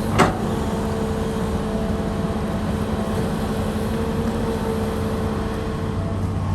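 Excavator's diesel engine running steadily under load, with a steady hum, and one brief sharp clank just after the start.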